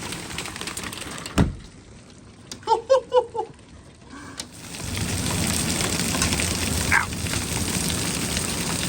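Hail and heavy rain pelting down as a dense hiss. A sharp thump comes about a second and a half in, the hail noise drops away for a few seconds while a quick run of short high yelps sounds, then it comes back full and steady about five seconds in.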